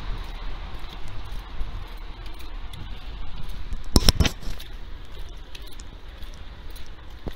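Street ambience with a steady low rumble, heard while walking along a wet pavement, and a short clatter of several sharp clicks about four seconds in.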